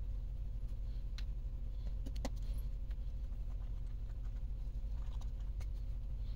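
Faint clicks and clinks of small plastic and metal transmission parts being handled and fitted together, a few at a time, over a steady low hum.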